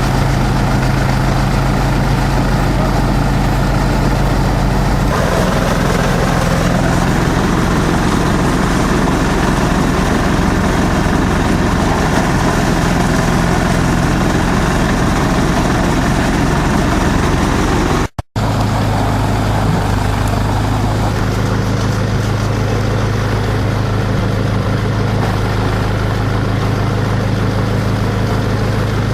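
Multi-purpose chopper-shredder machine running steadily with a loud, even hum. Its pitch shifts slightly about five seconds in, and the sound drops out for a moment about eighteen seconds in before carrying on.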